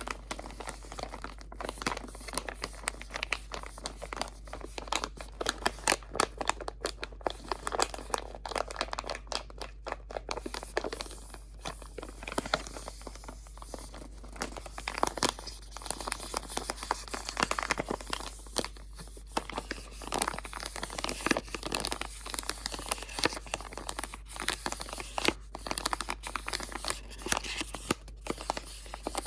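Close-miked crinkling and crumpling of crinkly material handled continuously, with dense, irregular crackles and louder bursts of rustling throughout.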